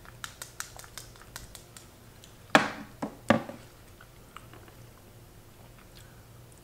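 Wooden chopsticks clicking and scraping in a small plastic cup of spicy mayo. About two and a half seconds in come two loud knocks, under a second apart, as the cup and chopsticks are handled against the table and takeout boxes.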